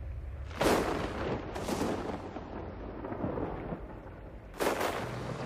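Low steady rumble broken by sudden loud blasts, one about half a second in and another near the end, with a weaker one in between: the dramatic thunder-like effects of a volcanic storm in an animated soundtrack.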